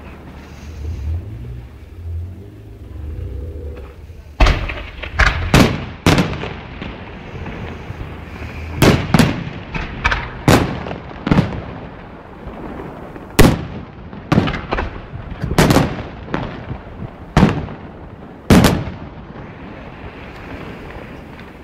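Festival fireworks going off in a series of sharp, loud bangs, some single and some in quick clusters, beginning about four seconds in after a low rumble and stopping a couple of seconds before the end.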